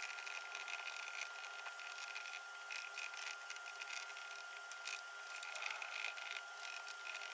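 Whiteboard markers scratching, squeaking and tapping on the boards, sped up into a thin, rapid patter of clicks and scrapes, with a faint steady high tone behind.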